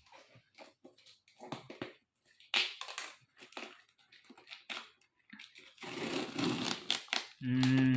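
Packaging being cut and torn open by hand: scattered crackles and snaps, then a longer crinkling rustle about six seconds in.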